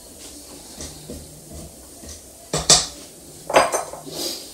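Two spatulas scraping cake batter of creamed butter, sugar and eggs down the sides of a stand mixer's stainless steel bowl, with light clicks, then a few sharp knocks on the bowl past the halfway point.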